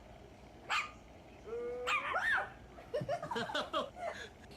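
A dog whining and yipping. There is one short high yelp, then a whine that rises and falls, then a quick run of yips about three seconds in.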